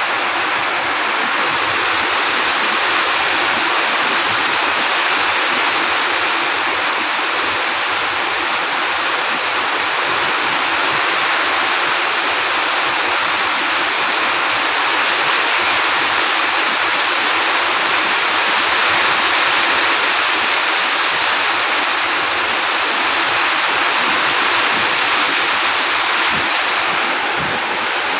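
A steady, loud rushing hiss with no breaks or rhythm.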